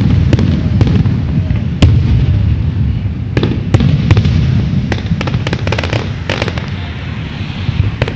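Aerial fireworks shells bursting: a run of sharp bangs and crackles over a continuous low rumble. The loudest bang comes about two seconds in, and a quick flurry of crackles follows about five to six seconds in.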